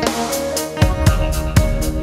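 Background music: a drum-kit beat with kick and snare under sustained instrumental chords.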